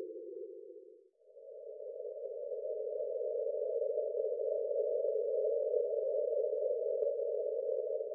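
Synthesized breathing-pace guide tone, a soft humming sound that marks the breath phases. A lower tone fades out about a second in, and a slightly higher one swells up and holds steady, signalling the switch from one breath phase to the next.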